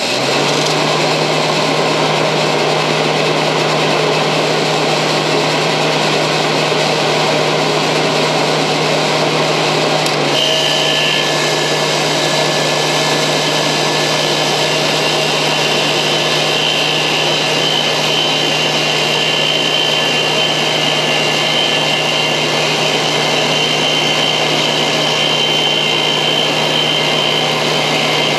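Dehumidifier running: a loud, steady motor and fan noise with a low hum, and a higher steady whine that joins about ten seconds in.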